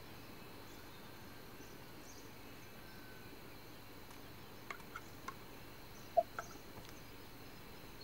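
Low background hiss, then from about halfway through a few faint, sharp clicks and short clucking animal calls, the loudest a little after six seconds in.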